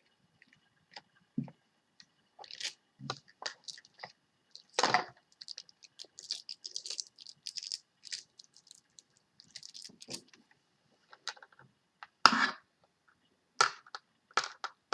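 Scattered crinkles, scratches and clicks of a taped-shut makeup package being handled while the tape is picked at to get it open.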